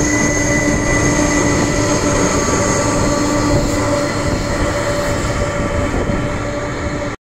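Boeing 767-300ER's jet engines at taxi power: a steady whine of several held tones over a low rumble, slowly fading as the aircraft moves away, then cutting off suddenly just before the end.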